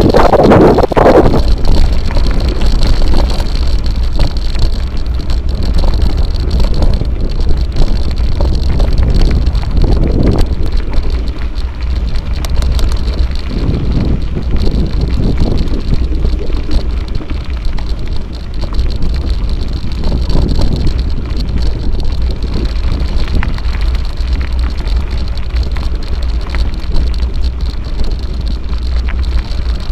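Mountain bike rolling along a gravel dirt road: tyres crunching over the stones, with wind rumbling on the bike-mounted camera's microphone and louder surges of road noise over rough patches, about a second in and again around the middle.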